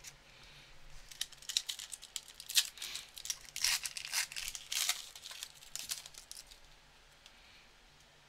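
Foil wrapper of an Upper Deck hockey card retail pack being torn open and crinkled by hand. The crackling starts about a second in, comes in quick irregular bursts, and stops a little after six seconds.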